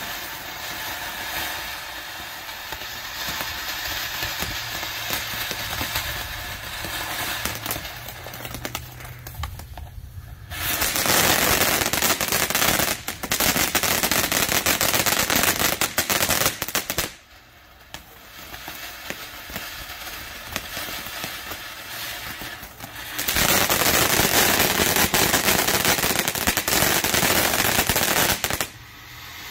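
TNT Fireworks Tyrannosaurus Rex ground fountain spraying sparks with a steady hiss. It breaks twice into loud, dense crackling: about ten seconds in for some six seconds, and again from about twenty-three seconds in until near the end.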